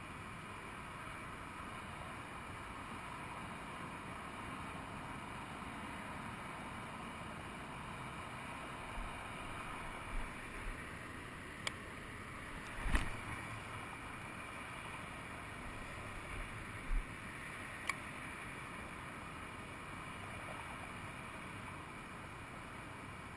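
Steady hiss of distant freeway traffic, heard through a waterproof action-camera housing. A handful of sharp knocks and clicks come in the middle, the loudest about halfway through, as the fishing rod is swung and handled.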